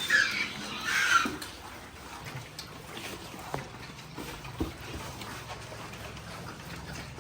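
Piglets squealing: two short, high squeals in the first second and a half, then quieter with a few faint knocks and a low hum.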